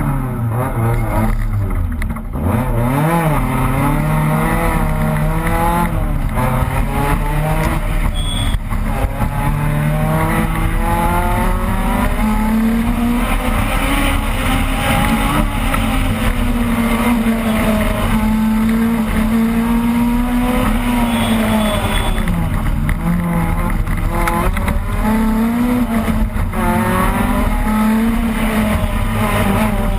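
Opel Kadett rally car engine, heard from inside the car at full stage pace, its pitch repeatedly climbing and dropping as it revs up and comes off the throttle.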